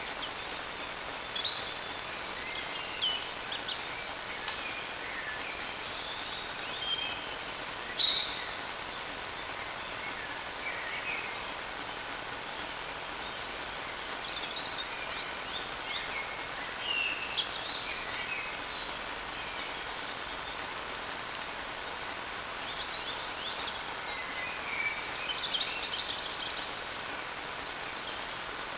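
Songbirds singing in woodland: scattered chirps, short whistles and a repeated high trill, with one louder call about eight seconds in, over a steady background hiss.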